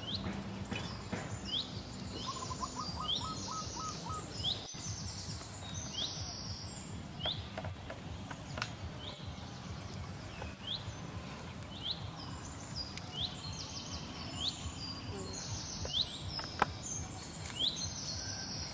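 Birds singing: short, high, sweeping whistled notes repeated over and over, with a brief run of about seven lower notes a few seconds in.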